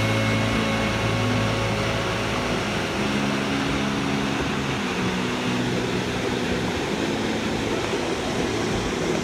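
Steady rush of a waterfall pouring into its plunge pool, with soft, low, held music notes underneath that change pitch every second or two.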